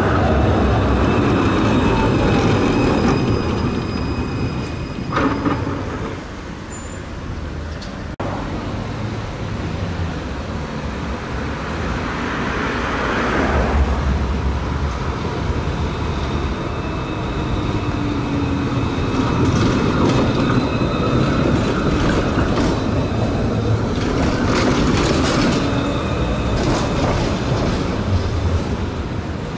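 Metre-gauge electric street trams: one running away from the start, then another approaching and passing close, its rumble building to the loudest point in the second half with a steady high whine over it.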